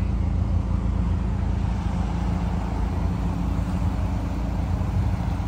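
2011 Mazdaspeed3's turbocharged 2.3-litre four-cylinder idling steadily, heard at the exhaust, with passing traffic in the background.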